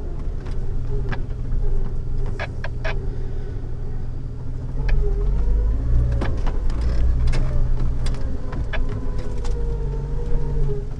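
Jeep Wrangler TJ crawling slowly over a rough off-road trail: a steady low engine rumble with scattered knocks and rattles and a faint squeak that wavers up and down in pitch.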